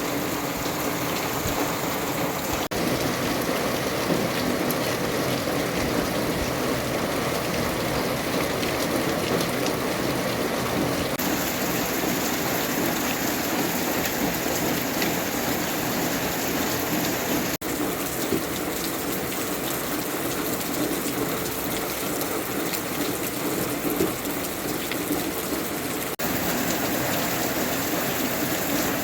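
Rain falling steadily. The sound shifts abruptly in tone a few times.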